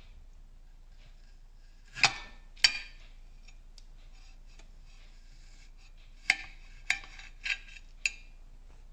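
Serrated knife cutting through beetroot and tapping against a plate: six sharp clicks, two about two seconds in and four more spaced evenly in the second half, with faint scraping between.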